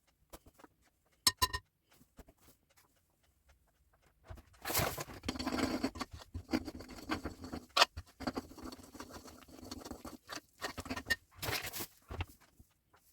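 Kitchen handling sounds: two quick ringing clinks, like a utensil striking a dish, then about eight seconds of irregular scraping and rustling with a few sharp knocks.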